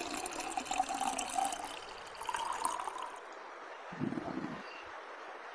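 Orange soda poured from a plastic bottle into a glass, fizzing, its pitch going up as the glass fills, stopping about three seconds in. A short dull knock follows about four seconds in.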